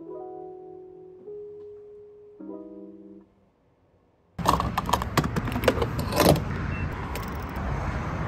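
Soft piano background music, then after a short gap the live sound of fuelling at a gas station pump: a loud rushing noise with sharp clicks and knocks.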